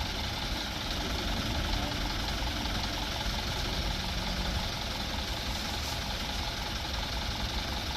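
Steady low rumble and hiss of a vehicle running, unbroken throughout.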